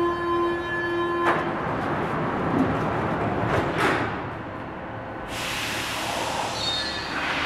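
Paris Métro Line 1 train and platform screen doors at departure: a steady warning tone sounds and cuts off about a second in, a couple of knocks from the doors closing follow, then a loud hiss comes in about five seconds in as the train gets ready to pull away.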